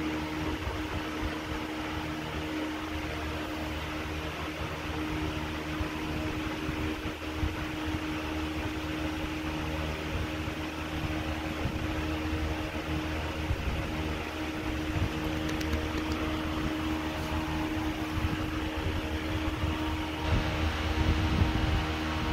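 Steady hum and whir of a running fan, with one steady low tone, growing a little louder near the end.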